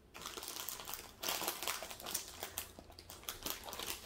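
Small plastic zip bags of diamond-painting drills crinkling as they are handled and sorted, starting just after the beginning and growing louder about a second in.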